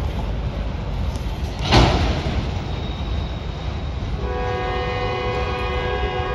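Empty autorack freight train rumbling past, with one sharp bang about two seconds in. From about four seconds a multi-note train horn sounds steadily as a held chord.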